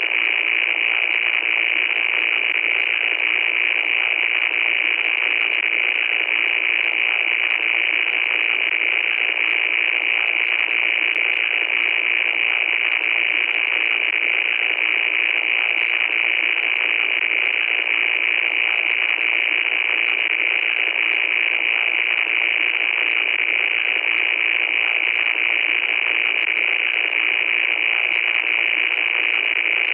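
Loud, steady static noise: an unbroken harsh hiss with no low end, strongest in the upper middle, with faint crackles through it.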